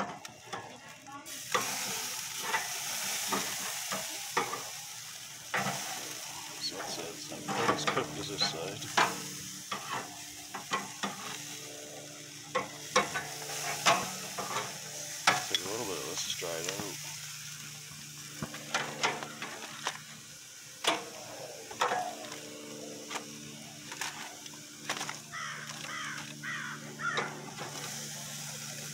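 Ham steak sizzling on a barbecue grill: a steady hiss broken by frequent sharp crackling pops.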